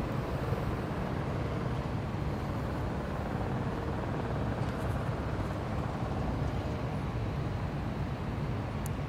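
Steady low rumble of distant city traffic mixed with wind on the microphone.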